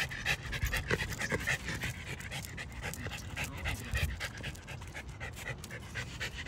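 An older miniature schnauzer panting quickly and rhythmically, out of breath from the walk.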